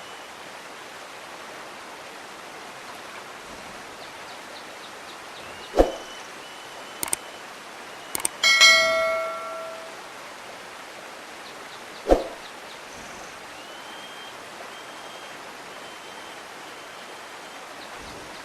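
Steady rushing of a flowing stream, broken by a few sharp knocks and, about halfway through, one loud metallic bell-like ring that fades out over a second or so.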